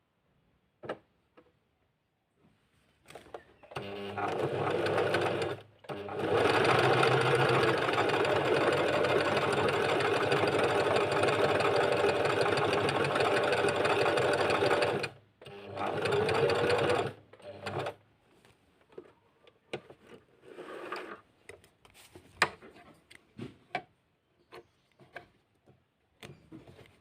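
Portable sewing machine stitching, presumably a buttonhole: it runs in three bursts, a short one, then a long steady run of about nine seconds, then a short one. After it stops there are scattered light clicks and knocks.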